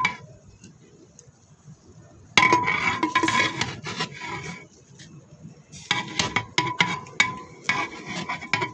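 A long-handled metal ladle stirring and scraping against the inside of a large aluminium pot of biryani rice, metal on metal. It comes in two spells, one from about two and a half seconds in for a second and a half and another from about six seconds in to the end, with a short knock right at the start.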